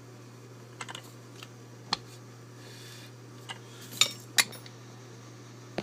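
Small metal clicks and clinks of an old Dexter deadbolt lock being handled and taken apart in a vise: about six separate ticks, the sharpest two close together about four seconds in.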